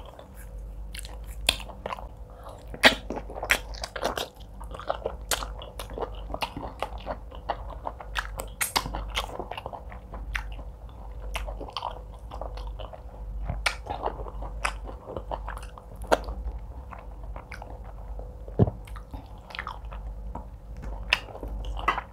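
Close-miked chewing of a woman eating fufu with egusi soup by hand, with many irregular sharp mouth clicks and smacks.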